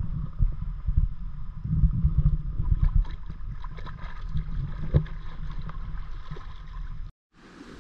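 Wind rumbling on the microphone over sea water lapping and splashing around a paddleboard, with a swimmer kicking alongside. The sound cuts off abruptly near the end.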